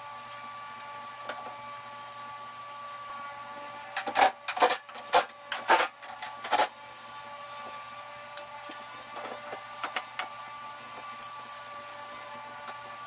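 Hand tools and metal parts knocking and clanking as the radiator's top plate is fitted: a cluster of sharp knocks about four to six and a half seconds in, then scattered light ticks, over a steady machine hum.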